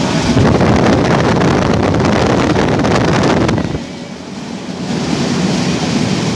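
Passenger train running, heard from inside a carriage by a window: a steady rush of wheel and wind noise that dips for about a second partway through and then comes back.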